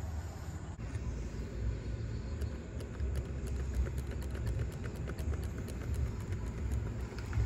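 Steady low outdoor rumble, with faint quick ticking high above it.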